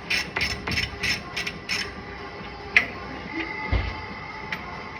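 Hand ratchet clicking rapidly, about four clicks a second, as a loosened U-bolt nut on the truck's rear leaf-spring mount is backed off. The clicking stops about two seconds in, followed by a couple of single sharp metallic clicks.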